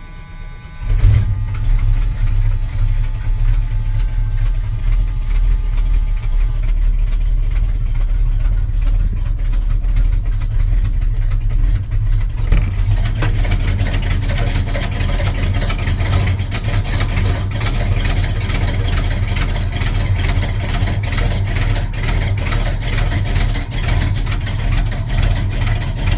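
Chevrolet 454 big-block V8: the starter cranks briefly, the engine catches about a second in, and it then runs at a rough, lumpy cold idle that makes it sound cammed. The owner puts the roughness down to the engine not firing on all cylinders. The sound turns harsher about halfway through.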